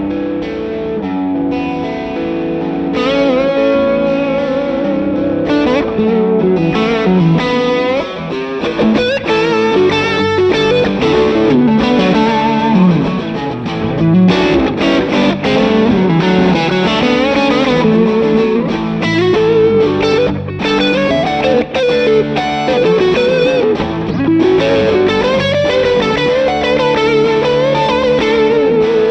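Electric guitar played through an SSD 92 Drive drive pedal, giving an overdriven tone. It mixes sustained chords with single-note lead lines that bend and waver with vibrato.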